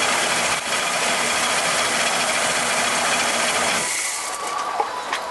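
A machine running with a loud, steady noise that cuts off about four seconds in, followed by a few clicks and rattles.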